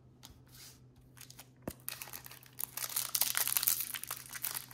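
Trading-card pack wrapper being handled, then torn open and crinkled from about two seconds in, with a few sharp clicks of handling before it and a steady low hum under it.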